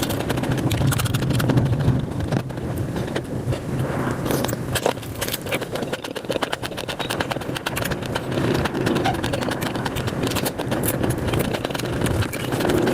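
Close-miked eating sounds of mutton nalli (bone-marrow pieces) being chewed, sped up, making a fast, dense stream of clicks and smacks over a steady low hum.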